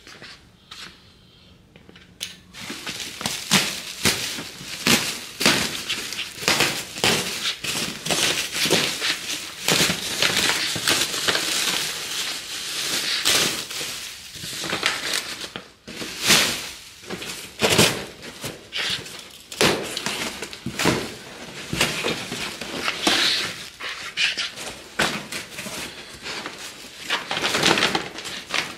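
Plastic stretch wrap and brown kraft packing paper being pulled, torn and crumpled off a large boxed grill guard. It is a continuous, uneven run of crinkling and tearing that starts about two seconds in.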